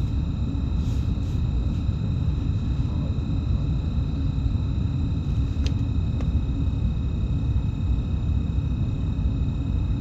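A BM 72 electric multiple unit standing still with its onboard equipment running: a steady low rumble under several constant high-pitched whine tones. Two faint ticks come about halfway through.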